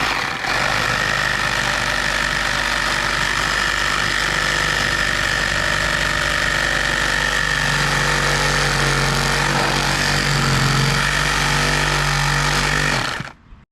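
A motor or engine running steadily at constant speed, with a steady high whine over it and a deeper hum that strengthens about halfway through.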